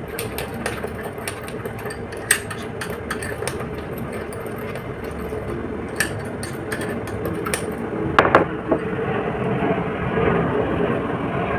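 Metal spoon clicking and scraping against a small glass bowl while stirring a thick, grainy coffee-and-sugar paste. The clicks are irregular, with a few louder knocks about two seconds in and again around eight seconds. Under them is a steady background noise that grows a little louder in the second half.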